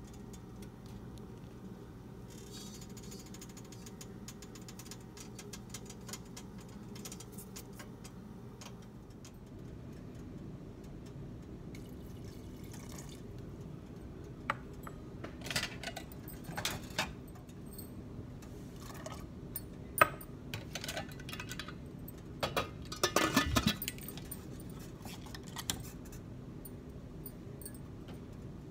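Metal clinks and knocks as a pressure cooker's lid and whistle weight are fitted, with one sharper knock partway through and a quick cluster of clinks near the end, over a steady low hum.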